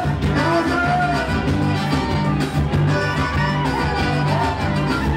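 Live band playing an instrumental passage with accordion, electric bass, guitar, keyboard and drums, over a steady, repeating bass line.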